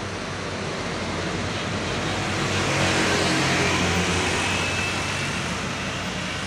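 Loaded diesel cargo truck passing close by: its engine hum and rushing tyre noise swell to a peak about three seconds in, then fade as it drives on.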